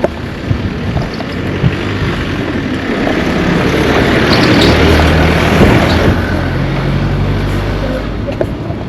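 A motor vehicle driving past close by: its engine and tyre noise grows louder to a peak about halfway through, then fades away.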